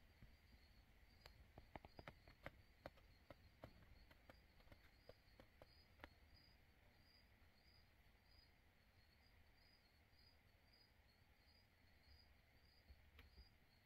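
Near silence, with a faint high chirp repeating evenly, a little more than once a second. About a dozen faint, irregular clicks fall in the first six seconds.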